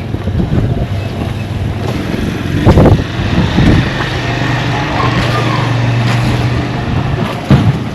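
A motor vehicle engine running close by, with a steady low hum from about four to seven seconds in and a few short thumps.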